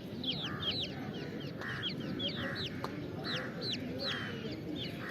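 Rhode Island Red chicks about three weeks old peeping: many short, high, falling cheeps overlapping in quick succession. A lower, buzzier note recurs about every 0.8 s underneath.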